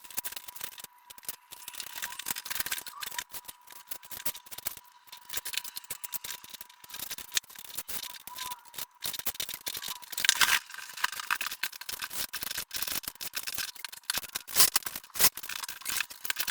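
Irregular scraping, rubbing and clicking of hand tools working on a wall, with a few louder rasping strokes about ten and fourteen seconds in.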